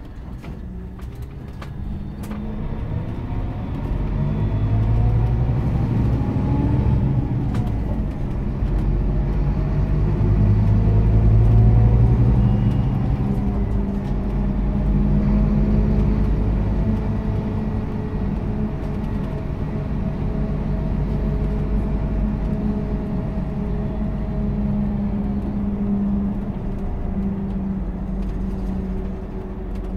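Scania Citywide diesel-electric hybrid bus, with a 9.3-litre DC09 engine, heard from inside the passenger cabin as it pulls away and accelerates. There is low engine and road rumble and a drivetrain whine that rises in pitch, drops once about seven seconds in, rises again, then holds fairly steady as the bus cruises.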